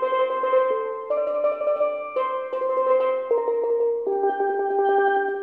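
Solo steelpan playing a slow melody, each note sustained with a rapid roll of repeated strikes, moving to a new pitch about once a second.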